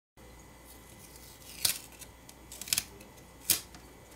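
A few short, sharp clicks and crinkles, a close pair among them, as the OnePlus 7's charging-port flex cable is pulled off the phone's frame by hand.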